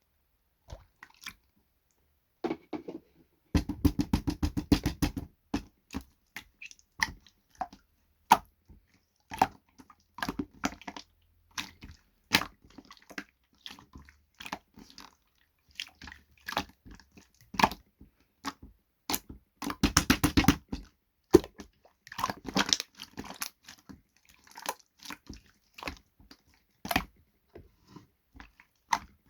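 Irregular crunching and clicking from something being handled, with two fast rattling runs of clicks, one a few seconds in and one about two-thirds of the way through.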